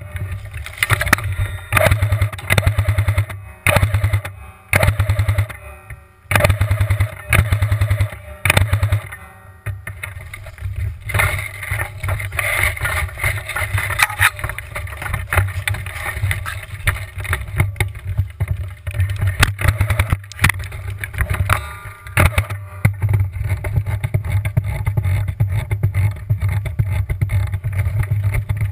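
JG Steyr AUG electric airsoft gun firing repeated bursts of rapid shots through its motor-driven gearbox, the bursts closely spaced in the first ten seconds or so. After that comes a steadier, rougher noise with only scattered clicks.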